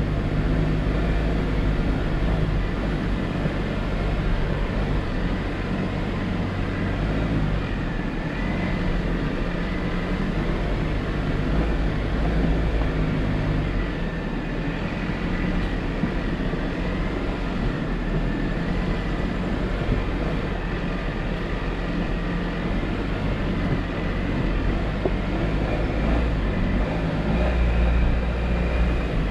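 Jeep Wrangler driving along a dirt trail: a steady engine drone under continuous tyre and road noise.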